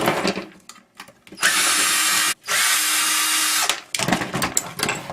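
Power drill run in two steady bursts of about a second each, opening up a fan motor's housing, followed by clicks and knocks of metal parts being handled.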